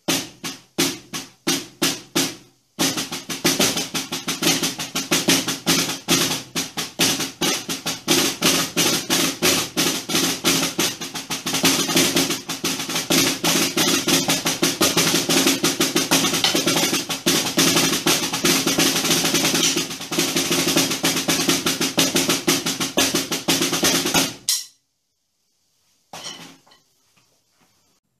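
Drumsticks playing a rudimental marching-style lick on a practice pad set on top of a snare drum: a few separate strokes, then about twenty seconds of fast, dense strokes and rolls that stop abruptly. A short, fainter flurry follows, then silence.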